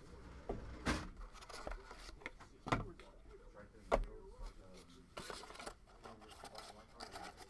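Cardboard trading-card box being handled: three louder knocks in the first four seconds, with softer rubbing and rustling between.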